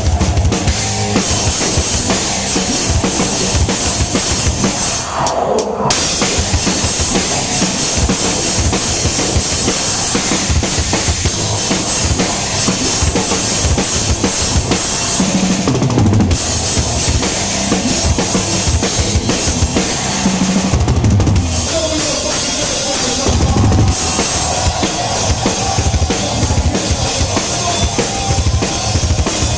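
Metal drum kit played hard and fast, heard from right behind the drummer: a constant stream of kick drum and snare hits under a continuous wash of cymbals, with the rest of the band playing loud underneath.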